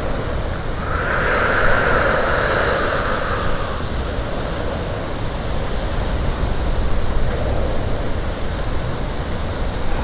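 Steady low background rumble and hiss, with a swell of rushing noise from about one to three and a half seconds in.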